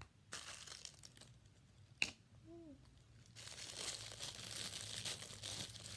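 Crinkly packaging being handled and torn open as a small toy accessory box is unpacked: a couple of sharp clicks in the first seconds, then continuous crinkling and rustling from about halfway on.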